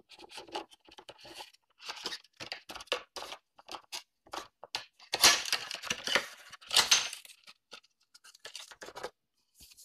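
Cardboard and plastic packaging being handled during unboxing: irregular rustles and scrapes, with a longer, louder rustle about five seconds in and another about seven seconds in.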